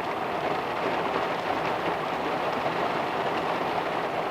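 Heavy rain pouring steadily on a car roof, heard from inside the car.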